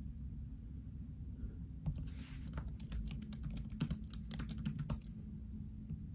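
Typing on a laptop keyboard: a quick run of keystrokes from about two seconds in until about five seconds in.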